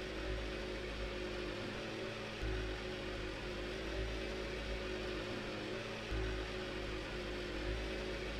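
Experimental electronic drone: a steady hiss over held low tones, with a deep rumble that cuts out for about a second every three and a half seconds or so.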